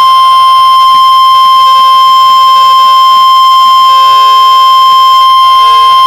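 NOAA Weather Radio 1050 Hz warning alarm tone of an Emergency Alert System tornado warning: a single loud, steady, unbroken tone, signalling that a warning message follows.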